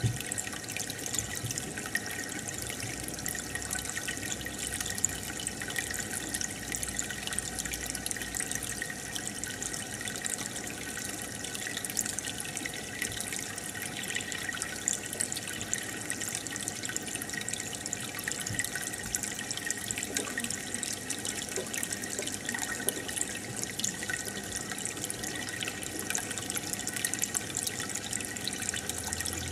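Aquarium water bubbling and trickling steadily, with a dense fizz of tiny bubble pops.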